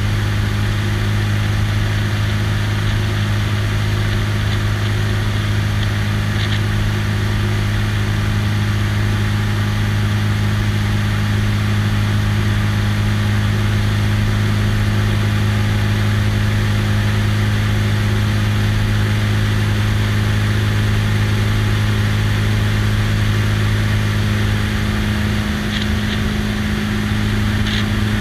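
Light biplane's piston engine and propeller droning steadily in flight, with a rush of airflow over the wing. The note wavers briefly near the end.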